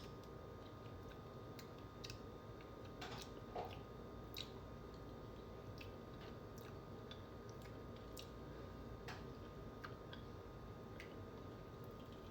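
Faint, scattered small clicks and crinkles of packaging being handled, a dozen or so spread irregularly over a low steady background.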